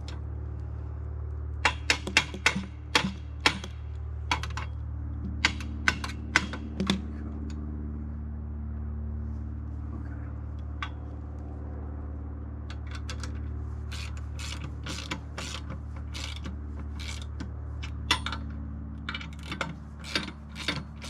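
Chainsaw chain being hand-filed: a run of short, sharp metal file strokes, then a pause, then a second run, over a steady low hum.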